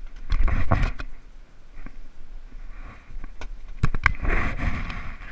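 Handling noise from someone moving about in a boat: clicks, knocks and rubbing in two bursts, one just after the start and a louder one about four seconds in.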